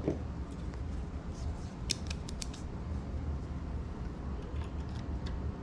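Stiff spring wire being bent by hand, giving small sharp clicks and creaks, most of them in a cluster between one and three seconds in.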